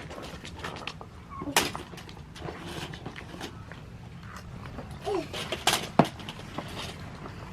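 Scattered clicks, knocks and rustles of things being handled in a room, with a couple of short vocal sounds. Two sharper knocks stand out, about one and a half seconds in and again near six seconds.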